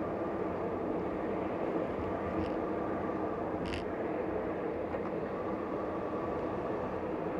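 Steady road and engine noise of a car driving along a city street, heard from inside the cabin, with a brief light click a little after two seconds in and a sharper one near four seconds.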